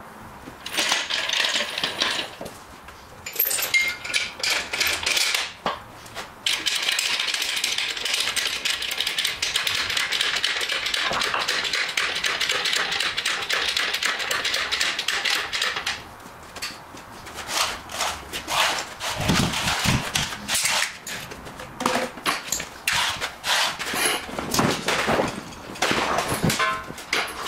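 Rapid metallic clattering and clicking of workshop equipment being handled, in spells of a few seconds with short pauses; the longest spell runs from about seven to sixteen seconds in.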